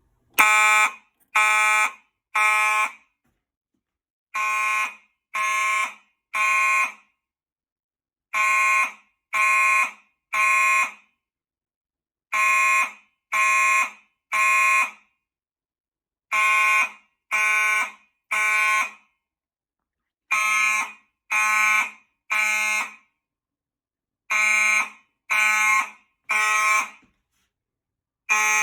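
Gentex fire alarm horn-strobes sounding the temporal-3 evacuation signal: three short loud horn blasts about a second apart, then a pause, repeating about every four seconds. The alarm has been set off from a key switch on the panel's initiating zone.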